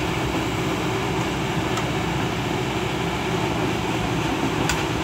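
Diesel engine of a CAT 120B excavator running steadily, with two faint short clicks, one about two seconds in and one near the end.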